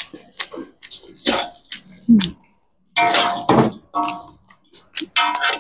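A metal utensil scraping and clinking against a wok as fried flat rice noodles are tossed and picked through, in irregular strokes, some with a short metallic ring.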